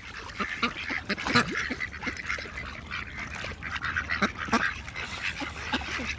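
A flock of ducks calling and quacking, many short overlapping calls, as they crowd in to be fed corn.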